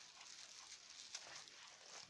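Faint crinkling and crackling of clear plastic wrap around badminton racquets as they are handled, with one sharper crackle about a second in.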